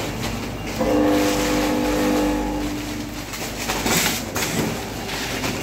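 Vertical form-fill-seal chips packaging machine running, with a steady mechanical noise. A held, pitched tone sounds from about a second in to about three seconds in, and a short loud hiss comes about four seconds in.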